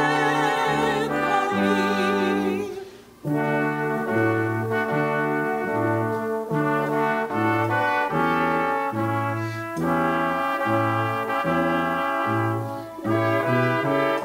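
Music for the recessional. A sung line with wide vibrato ends about three seconds in, and brass instruments then play chords over a bass line of evenly spaced notes.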